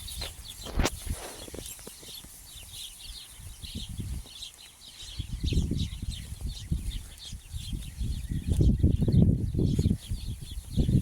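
Small birds chirping over and over in short high notes, with a sharp click just under a second in and low rumbling noise growing louder from about halfway.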